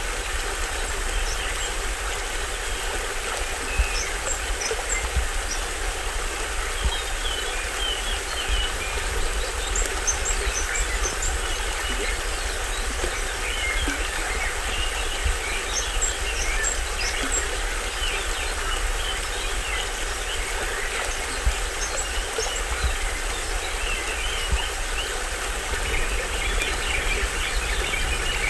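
A small waterfall on a stream splashing steadily, with a low rumble underneath, while tropical forest birds give many short, high chirps throughout.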